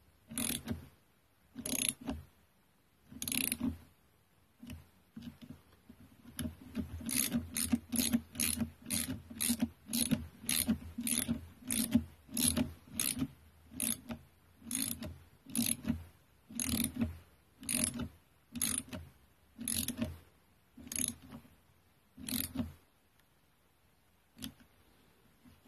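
Ratchet wrench clicking in short repeated strokes as bolts are tightened, a few spaced strokes at first, then about two a second, then slowing and stopping near the end.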